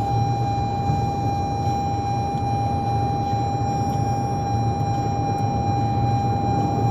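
2021 Toyota Corolla's seatbelt reminder sounding one steady, unbroken high tone: the unbuckled-belt warning in its constant, louder stage. Under it, the low rumble of the car driving, heard from inside the cabin.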